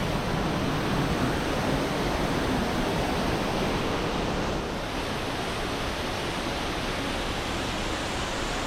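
Waterfall: the steady, unbroken rush of falling water, close and fairly loud.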